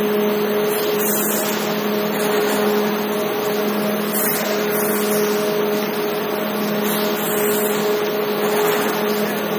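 Steady machine hum of an automatic brick-setting machine and belt conveyor, with a few steady tones under an even running noise.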